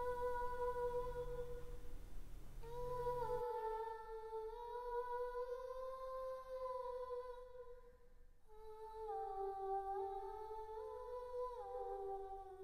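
A single voice humming a slow tune in long held notes, stepping lower in pitch in the second half, with a brief break about eight seconds in.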